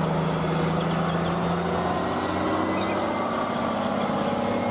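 Concrete mixer truck's diesel engine running steadily, with a low hum that steps slightly lower in pitch about two seconds in.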